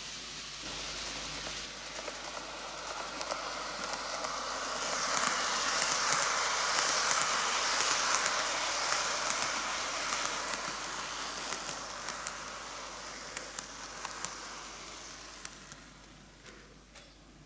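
N-gauge model train (TOMIX Kintetsu 80000 series Hinotori, eight cars) running on track: a steady hiss of motor and wheels on rail with scattered light clicks, growing louder as the train passes close about five seconds in, then fading away near the end.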